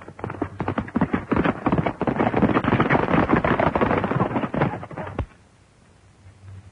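Hoofbeats of several galloping horses, a dense rapid clatter that stops about five seconds in as they pull up.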